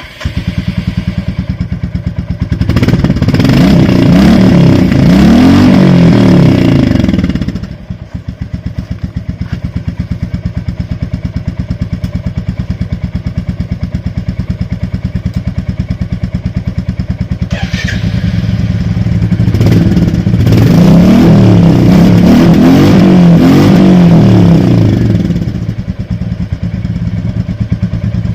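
Royal Enfield Classic 350's single-cylinder engine thumping at idle through its exhaust. It is revved up and held twice, for about five seconds each time, then drops back to a steady idle.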